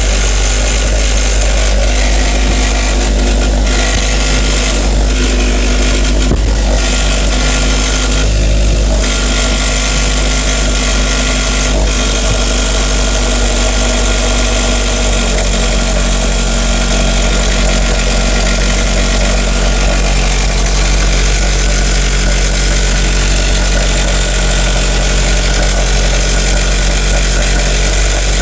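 Toyota AE86's 4A-G four-cylinder engine idling steadily with an abnormal mechanical noise from the engine.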